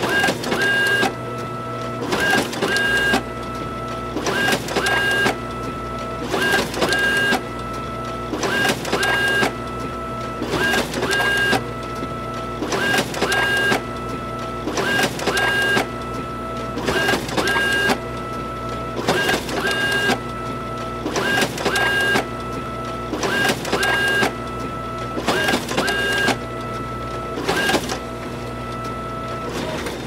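Photocopier running a continuous copy job: a steady motor hum under a loud burst of mechanism noise, in two quick parts, that repeats evenly about every two seconds.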